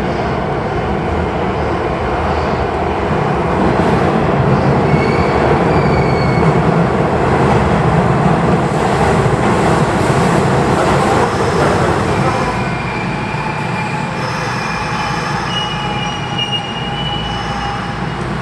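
Electric commuter train moving through an underground station, a loud rumble that swells and then eases, with steel wheels squealing in thin high tones through the second half.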